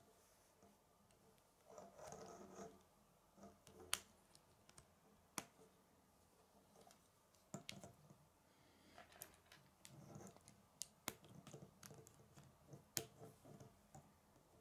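Plastic K'nex rods and connectors clicking as they are snapped together and handled: scattered sharp clicks every second or two, with soft rustling of parts between.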